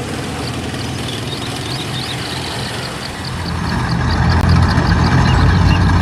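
A steady low motor hum that grows clearly louder about three and a half seconds in.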